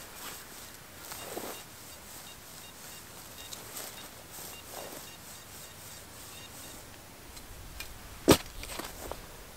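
Quiet outdoor field background with faint rustling, then one sharp knock near the end, clearly louder than anything else.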